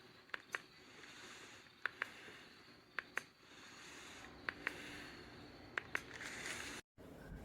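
Ceiling fan running, with sharp clicks in pairs repeating about every second and a half over a faint steady hiss. The sound cuts out briefly near the end.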